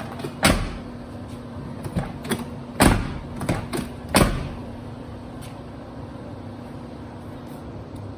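Steel door of a 1998 Chevy/GMC pickup being shut and latching onto its striker, a run of clunks and latch clicks over the first four seconds or so, the loudest two about three and four seconds in, as the door's fit to the newly reinforced striker mount is tested. A steady low hum runs underneath.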